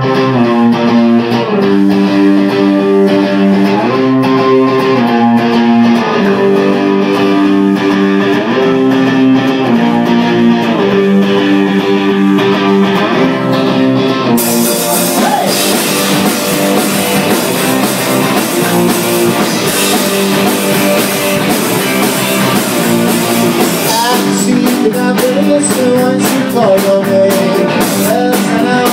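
Live rock band: electric guitars and bass play a chord riff on their own. About halfway through, the drum kit comes in with cymbals and the full band plays on.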